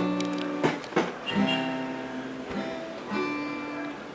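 Acoustic guitar strummed loosely: a few chords are struck and left to ring out, fading between strokes.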